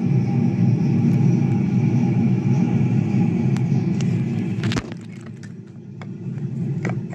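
Wooden toy train rolling along wooden track, a steady low rumble that stops with a sharp click about five seconds in, followed by a few faint knocks.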